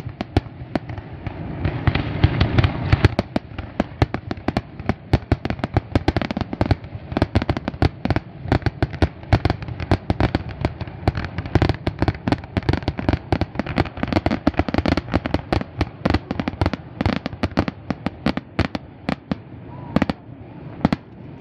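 Aerial fireworks shells bursting in a rapid, unbroken barrage of bangs and crackles, several reports a second, over a low rumble.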